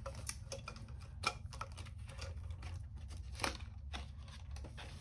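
Paper banknotes being handled, shuffled and pushed into a clear vinyl cash envelope: a run of soft rustles and light clicks, with two sharper ones about a second in and about three and a half seconds in, over a steady low hum.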